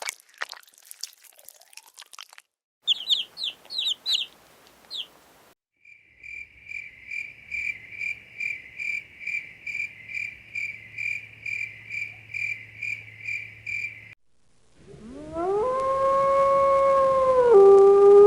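A run of short, separate animal sound clips: scattered clicks, then a few quick chirps, then a high trill pulsing about twice a second for some eight seconds, then a long howl that rises in pitch and holds.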